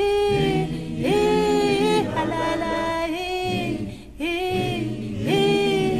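Group of voices singing a cappella in harmony, a short phrase of held notes repeated over and over.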